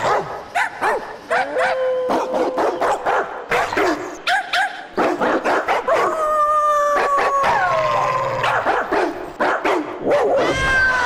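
A cartoon puppy 'choir' performing: a quick run of short barks and yips, then long howled notes that slide slowly down in pitch, with a last rising howl near the end.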